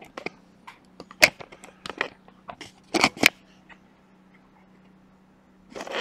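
Small hand tools clicking, tapping and scraping on a PS5 circuit board as the newly soldered HDMI port is cleaned up, in a run of sharp irregular clicks that are loudest about a second in and again around three seconds, then stop for a couple of seconds.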